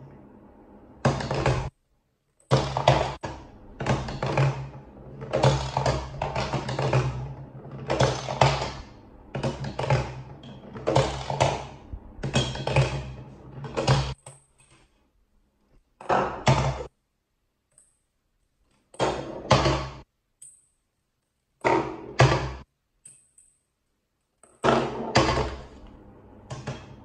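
Plastic balls dropping into a LeapFrog Peek-A-Shoe Octopus toy and rolling down through its hollow plastic body: a long run of thunks and knocks, then several shorter bursts with short quiet gaps between them.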